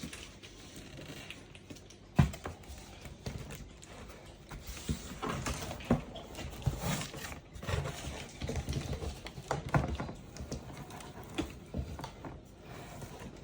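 Parcel packaging being handled and unwrapped: rustling and crinkling with irregular knocks and clicks, a sharp knock about two seconds in and busier handling from about five seconds on.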